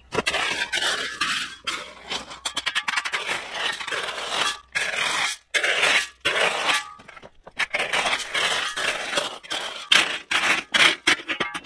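Steel shovel digging into and spreading crushed rock: repeated gritty scrapes of the blade through the stones, with stones rattling and clinking against each other.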